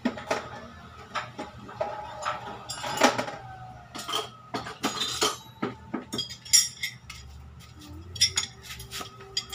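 Metal hand tools clinking and knocking against each other and the car's steel suspension parts, in irregular sharp clicks.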